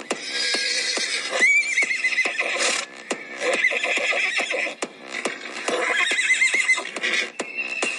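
Galloping hoofbeats in a quick, even rhythm, with a horse whinnying several times over them, as sound effects in a horse-racing channel's ident.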